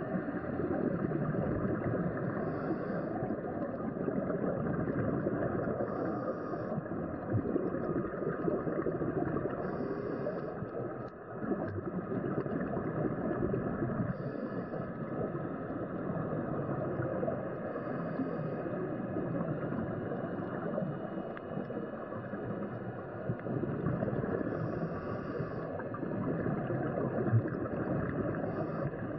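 Steady underwater rushing and bubbling noise, with a brief hiss every four seconds or so: scuba divers breathing through their regulators and releasing exhaust bubbles.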